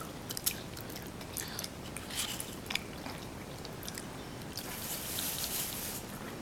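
A small child chewing and smacking while eating longan fruit, with soft wet mouth clicks scattered throughout. A short hiss comes about five seconds in.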